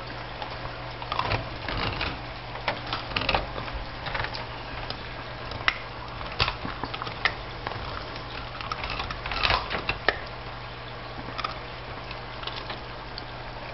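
Peruvian Hairless Dog gnawing a knuckle bone: irregular crunching and cracking of teeth on bone, with sharp clicks coming in flurries, thickest near the start and again about two-thirds of the way through.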